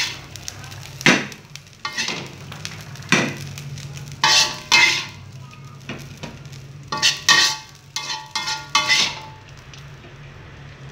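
Metal spatula clanking and scraping against a pan of fried rice: a series of sharp clanks, some with a brief metallic ring, as the nasi goreng is scooped out to serve.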